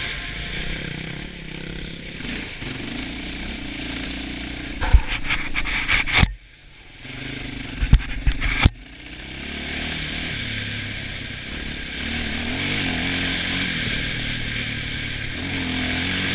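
Quad bike engine running under way on rough ground. About five seconds in, a cluster of sharp knocks and scrapes breaks in, with a brief drop in the sound, as something brushes against the helmet camera. The engine then comes back steady.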